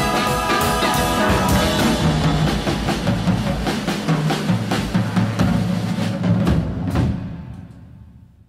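Instrumental close of a rock-and-roll song: drum kit and bass playing hard, ending on a final hit about seven seconds in that dies away.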